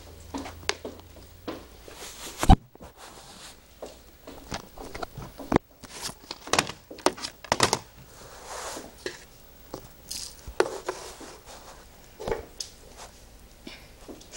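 Red-eared slider turtle biting and crunching shrimp: irregular clicks and crunches, with one sharp, loud knock about two and a half seconds in.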